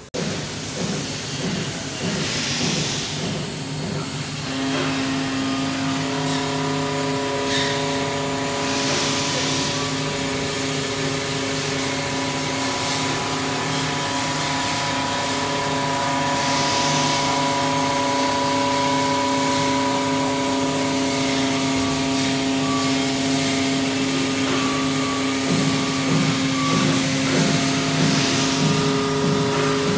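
Elumatec SBZ 140 CNC profile machining center running a machining cycle on an aluminium profile: a steady machine whine from the spindle and drives, with a few short hisses and a shift to a new tone near the end.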